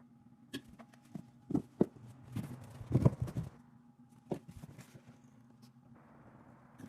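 Scattered knocks and clicks over a steady low hum, with a busier clatter of knocks about three seconds in.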